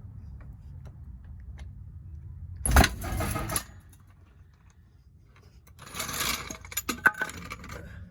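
A failing floor jack letting the car down: a loud metallic bang about three seconds in with a short rattle, then a second stretch of metal clattering and sharp clanks near the end. It is the car coming down harder than intended, not gently.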